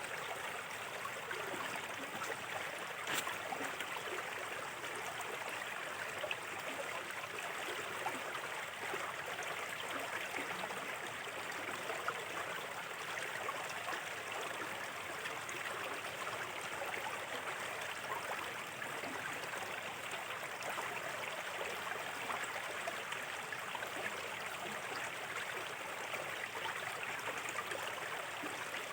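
A small, shallow river flowing steadily over stones, with a constant babble and splashing that stays even throughout. A single brief click stands out about three seconds in.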